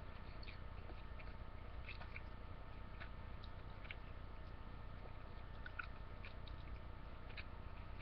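Faint chewing of a sub sandwich: scattered small mouth clicks over a steady low hum and hiss.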